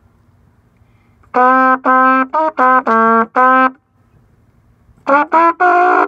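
Trumpet played in short, separately tongued notes. A phrase of about seven notes starts a second and a half in, breaks off, and another quick run of notes begins near the end.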